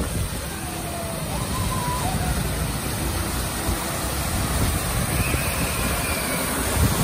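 Steady rushing of water cascading down a rocky artificial waterfall, growing a little louder as it gets closer.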